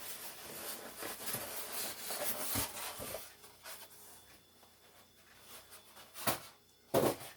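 Cardboard packaging being scraped and rubbed as an air fryer box is worked open, scratchy for the first few seconds, then quieter, with two short sharp sounds near the end.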